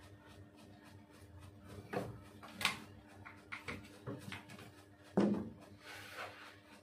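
Manual die-cutting press being worked by hand: a string of metal clunks and clicks, with a sharp click near the middle and a heavier thump about five seconds in.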